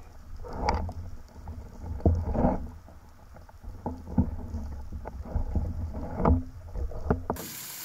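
Underwater recording from a freediver's camera during the ascent: a steady low water rumble with scattered knocks and clicks and a few short rushes of water. Near the end it cuts to the hiss of a frying pan.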